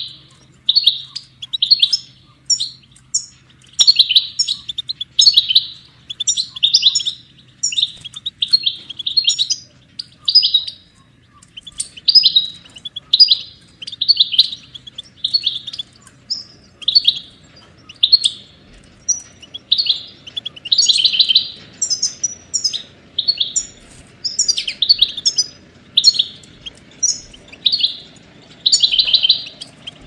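European goldfinch singing: a continuous run of short, bright twittering phrases and trills, about one or two a second, with brief gaps between them.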